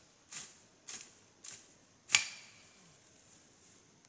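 Four sharp snaps about half a second apart, the last the loudest with a brief ring: plant stems being cut or broken off by hand.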